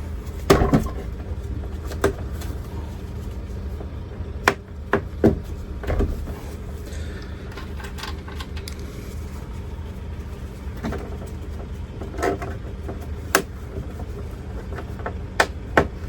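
Plastic trim fasteners being pressed into a truck door panel: scattered sharp clicks and knocks, about ten in all, over a steady low hum.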